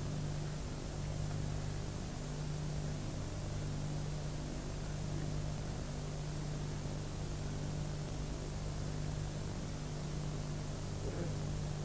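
Steady hiss with a low electrical hum under it, and no speech.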